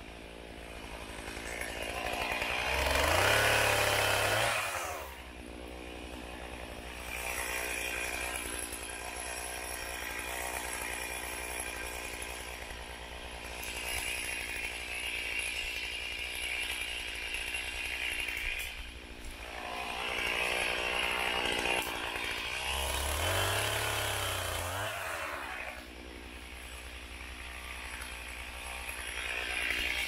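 Chainsaw running at idle, revved up to full speed twice for about two seconds each: once a few seconds in and again near the end, its pitch rising and falling back each time.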